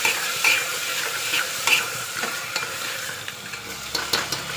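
A metal ladle stirs taro pieces frying in masala in a pressure cooker, scraping and clinking against the pot every half second or so. A steady sizzle runs underneath.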